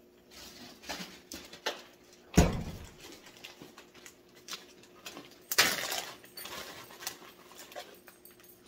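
A refrigerator door shuts with a loud thump about two and a half seconds in. Around five and a half seconds a loud rustle follows, with scattered light knocks and clicks of things being handled on a counter.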